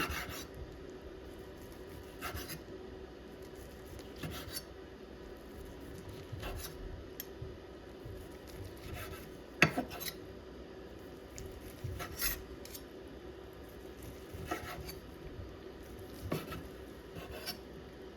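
Light clinks and short scrapes of small hard objects being handled, every couple of seconds, one sharper clink a little before halfway, over a faint steady hum.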